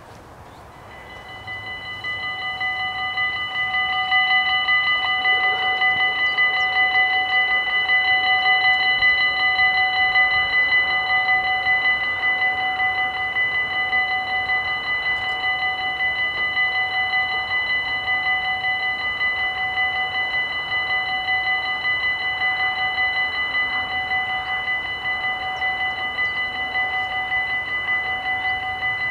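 Dutch level-crossing warning bells ringing steadily, coming on about a second in and getting louder over the first few seconds. They signal that the crossing is closing, with the red lights flashing and the barrier lowering.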